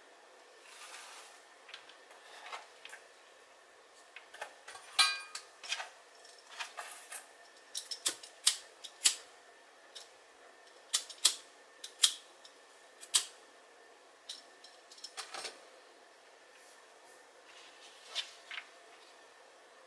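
Scattered sharp clicks and taps with a few brief rustles, from yarn, needle and plastic bag parts being handled while the bag is sewn.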